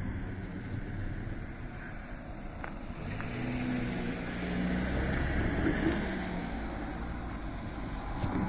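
A motor vehicle passing, its engine and tyre noise building from about three seconds in, at its loudest midway, then easing off, with a short knock near the end.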